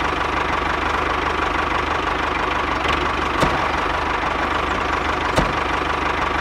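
Small electric motor of a miniature DIY flour mill machine running steadily with a high whine and a fast buzzing rattle, with two sharp clicks about three and a half and five and a half seconds in.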